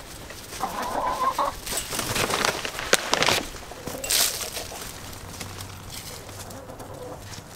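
Backyard chickens clucking as a handful of treats is scattered for them. A rustling spatter of grain lands on the wood chips about four seconds in.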